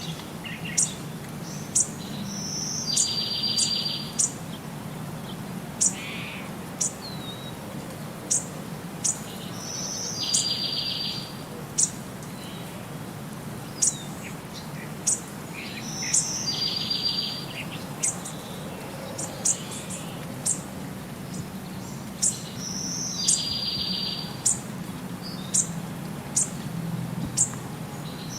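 Birds chirping: short sharp high chirps every second or so, and a song phrase of one note followed by a buzzy trill, repeated about every six to seven seconds, over a steady low hum.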